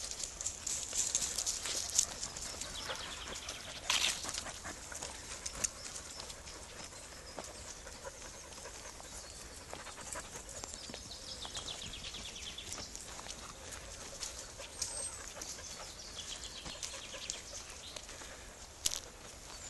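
A group of dogs on a dry woodland path: paws and footsteps crackling over dry leaves and twigs in scattered small clicks, with a dog panting.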